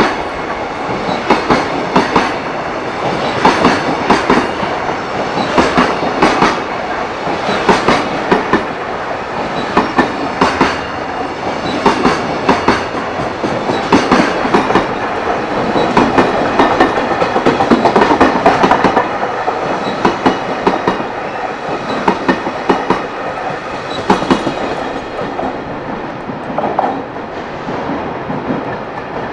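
Long freight train rolling past over rail joints, its wheels clattering in a repeated clack-clack rhythm over a steady rumble that eases slightly near the end.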